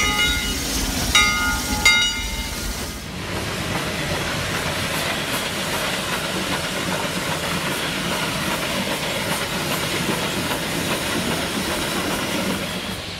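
Steam locomotive whistle sounding two blasts, the second a little longer, followed by the steady hiss and rumble of the steam locomotive working.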